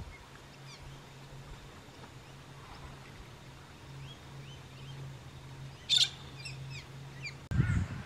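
Wild birds calling outdoors: scattered short, gliding chirps, with one sharp, loud call about six seconds in, over a low steady hum. Near the end the sound changes abruptly to a louder rumble with a few repeated lower calls.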